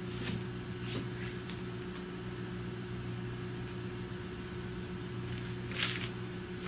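A steady low machine hum, with a few brief handling noises over it, the clearest about six seconds in.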